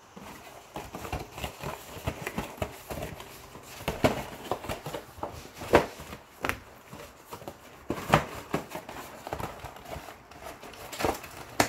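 Cardboard cereal box being handled on a hard countertop: irregular taps and knocks as it is tipped and set down, with sharper knocks about four, six and eight seconds in. Near the end the box is lifted and its top flaps are opened.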